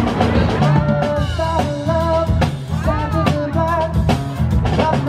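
Music with a steady beat: drum kit and bass under a melody line.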